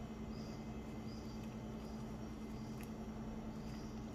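Quiet indoor room tone: a steady low hum throughout, with a couple of brief, faint high chirps.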